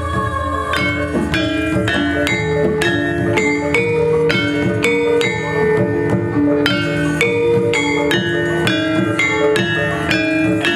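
Javanese gamelan ensemble playing: bronze metallophones struck in a steady, even pulse of ringing notes over held tones.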